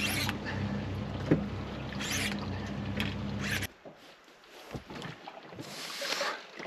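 A boat's motor running with a steady low hum, with short hissing gusts over it, stopping abruptly about three and a half seconds in; then quieter rustling and a brief hiss.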